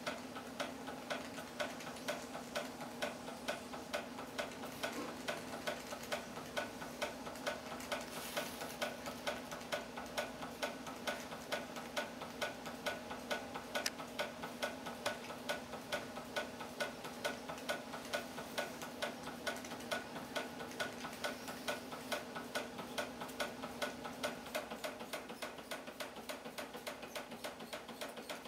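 Antique Märklin toy steam traction engine running and driving a tin carousel by a belt: a regular light clicking about three times a second over a steady hum. The clicking grows fainter near the end.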